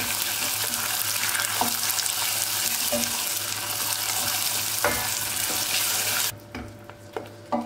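Boiling sugar caramel with melting butter bubbling and sizzling in a stainless steel pot while a wooden spoon stirs it. The steady hiss cuts off suddenly about six seconds in, leaving a few light knocks.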